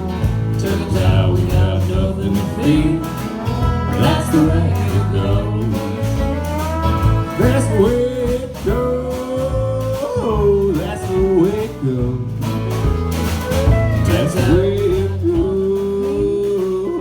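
Country band playing the song, with guitar and a sliding, held melody line over a steady bass beat.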